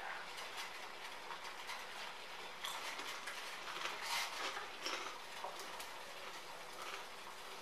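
Water at a rolling boil in a steel pot: a steady bubbling with many small irregular pops. A few louder clinks and scrapes come from metal tongs moving around in the pot, from about three to five seconds in.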